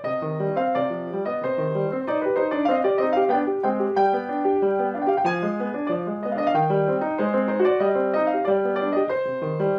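Grand piano played solo: a steady, unbroken flow of overlapping notes and chords.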